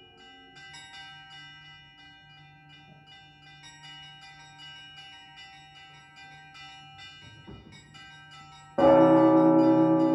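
Russian Orthodox church bells rung close up in the belfry: small bells strike lightly in quick succession, their tones ringing on. About nine seconds in, a much louder, deeper bell strike comes in and keeps ringing.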